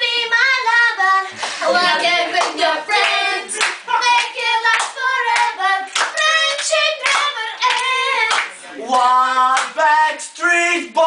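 Singing, with hand claps through it.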